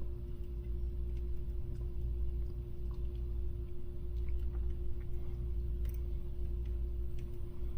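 Steady low electrical hum with a constant mid-pitched tone over it, and faint scattered ticks and small clicks.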